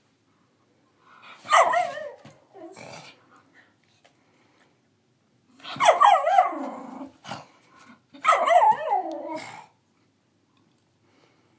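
A young miniature schnauzer trying out her voice with half-bark, half-howl calls: three main drawn-out, wavering calls that fall in pitch, and a weaker one after the first.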